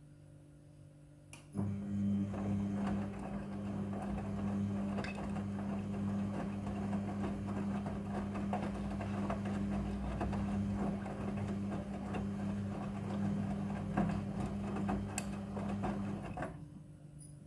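Midea front-loading washing machine running: a steady hum with a busy rattle starts about a second and a half in, runs for about fifteen seconds and then stops.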